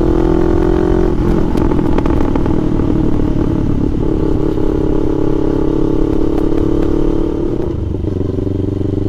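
CFMoto 700 CL-X Sport's parallel-twin engine running at road speed through an S&S slip-on exhaust. Near the end the note drops lower and quieter as the bike slows.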